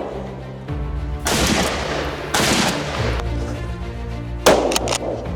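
A single sharp rifle shot about four and a half seconds in, ringing out briefly, over background music with steady low notes; earlier, two longer rushing noises of about a second each.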